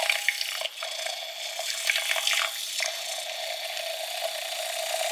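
Battery-powered handheld milk frother whirring steadily in a glass of liquid, with some splashing in the first half of the clip. Its battery is running low, which she blames for its weak spin.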